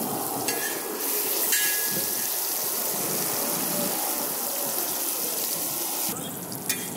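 Butter sizzling and bubbling on a hot iron tawa around a frying aloo tikki (potato patty), a steady hiss. A steel spatula gives a few light clicks against the griddle.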